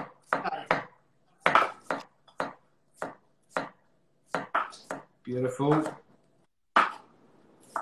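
Kitchen knife slicing radishes finely on a cutting board: a run of sharp, separate chops at an uneven pace, roughly two a second.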